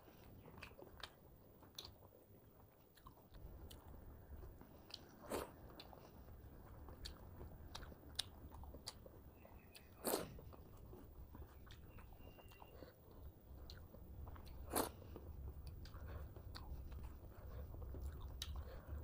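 Close-miked chewing and wet mouth sounds of a person eating rice and curry by hand, with many small clicks and smacks. Three louder smacks stand out, about 5, 10 and 15 seconds in, over a low hum.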